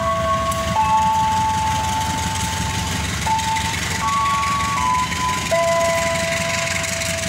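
Diesel-hauled passenger train running past with a steady low rumble and rail noise. Over it plays a slow tune of single clear notes, each held for about half a second to two seconds.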